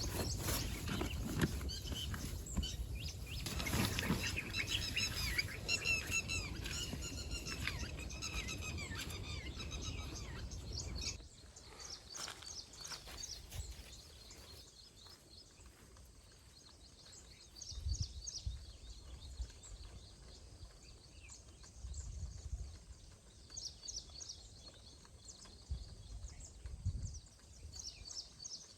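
Birds chirping and calling at dawn, many overlapping calls over a steady background noise. About eleven seconds in it cuts abruptly to a quieter stretch with scattered chirps and a few brief low thuds.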